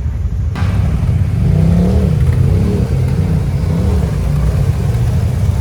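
Can-Am Outlander ATV's V-twin engine running under load, revving up and down several times in quick succession with a wavering pitch.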